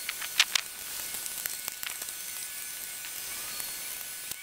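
A few light clicks and taps from hands working a propane hose fitting on a gas grill, over a steady faint hiss. The sharpest two clicks come close together about half a second in.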